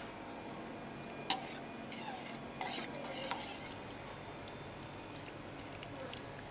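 A spoon stirring a sauce in a small bowl, with a few light clinks against the dish; the sharpest comes about a second in.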